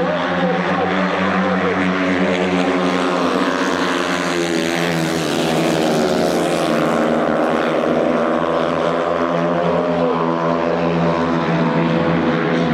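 Several 500cc speedway solo motorcycles racing, their single-cylinder methanol-fuelled engines running hard together in a loud, steady drone. The sound is fullest near the middle as the pack slides through the corner close by.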